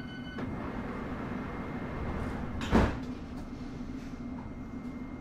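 Interior running noise of a London Underground S7 stock (Bombardier Movia) train in motion: a steady hum and rumble, with a single sharp bang about two and a half seconds in. A steady electronic tone cuts off just after the start.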